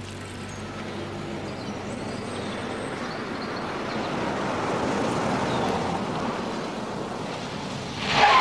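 A car driving past: its engine and tyre noise rise as it approaches, peak, and fade as it drives away. Just before the end comes a short, loud burst with a pitched tone.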